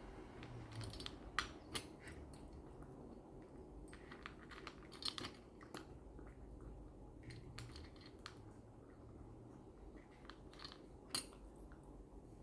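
A pet crunching dry kibble: irregular sharp crunches and clicks, the loudest about a second and a half in, around five seconds in and near the end.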